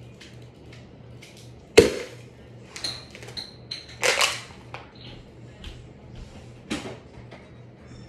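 Plastic bottle thrown into a spinning ceiling fan and struck by the blades with a loud smack about two seconds in, followed by scattered clacks and two more hard knocks, around four and seven seconds in. A low pulsing hum runs underneath.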